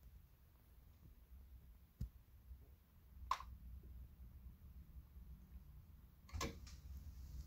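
Dual 1218 turntable going through its automatic start cycle: a small click about two seconds in, then a sharper mechanical click about a second later as a low motor hum comes up. Near the end a short cluster of clicks comes from the changer mechanism as the tonearm moves out over the record.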